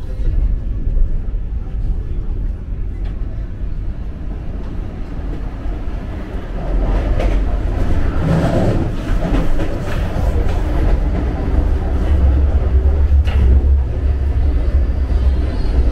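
Vande Bharat Express electric train set running, a steady low rumble that grows louder about six and a half seconds in.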